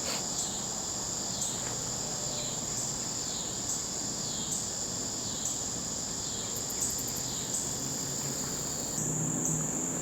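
Chorus of insects: a steady, high-pitched trill with a pulse a little more often than once a second.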